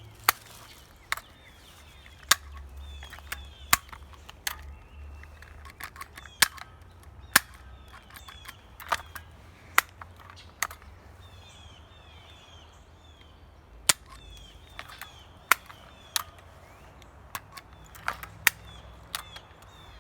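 A stapler being fired over and over: sharp, separate snaps at irregular spacing, about one a second.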